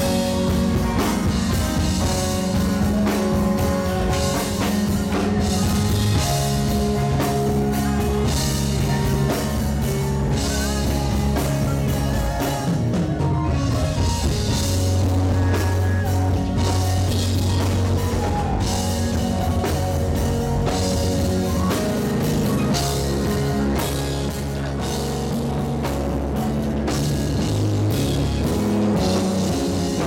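Live gospel worship band playing loudly through the church PA, a drum kit driving a beat under long held bass notes and sustained chords.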